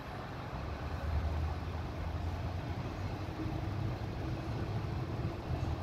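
Low, steady hum of a motor vehicle's engine running.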